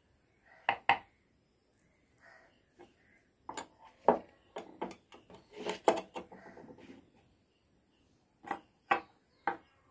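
Steel carving chisels and gouges knocking and clinking against each other and the wooden board as they are handled and set down: irregular sharp knocks in small clusters, about a second in, again from about three and a half to six seconds, and near the end.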